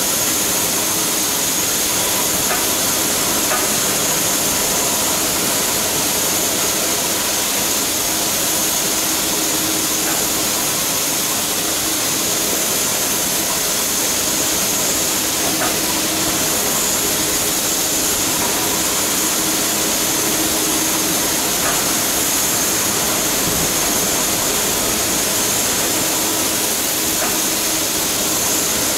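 Standing class 52 steam locomotive hissing steadily, a constant rush of escaping steam with a faint hum underneath.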